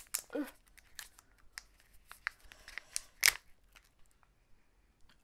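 A small body-scrub sample sachet being torn open by hand: a run of sharp crinkles and rips of the packet, the loudest about three seconds in, then quiet.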